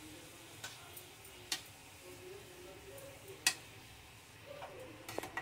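Steel spatula stirring grated bottle gourd in a metal kadai, clinking against the pan a few times, the loudest about three and a half seconds in, with a quick run of clinks near the end. A faint steady hiss lies under it.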